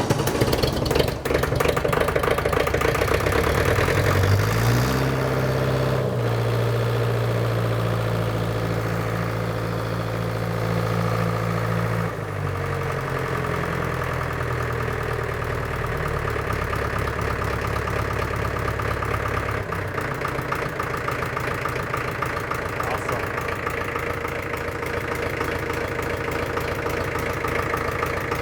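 1963 International TD5 crawler's glow-plug diesel engine running just after its first start. About four seconds in its speed rises and holds steady, falls back about twelve seconds in, then settles into a steady idle.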